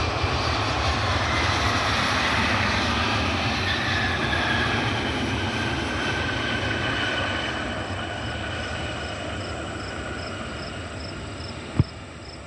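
Regional jet passing on its landing approach: steady jet-engine noise with a whine that falls in pitch as it goes by, then fades. A sharp click near the end.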